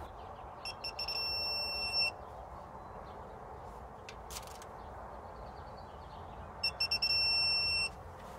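Digital torque wrench beeping twice: each time a few quick beeps, then a steady tone of about a second, signalling that a timing chain tensioner bolt has reached its set torque of 18 ft-lb. A single sharp click falls between the two.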